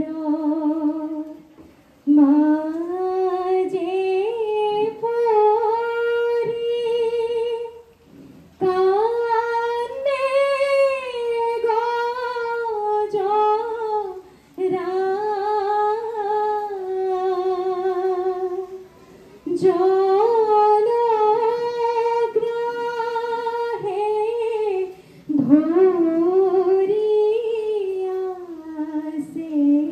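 Women's voices singing dihanam, Assamese devotional hymns, together in one melody line without instruments. The slow phrases are held and ornamented, with short pauses for breath between them.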